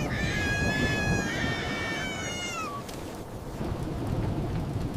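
Storm sound effect, a low rumble of wind and rain, under a high-pitched drawn-out wailing cry that slides down in pitch and stops about three seconds in.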